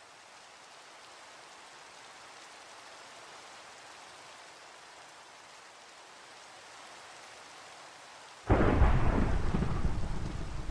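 Steady, faint rain, then about eight seconds in a sudden loud thunderclap whose deep rumble slowly fades over continuing rain.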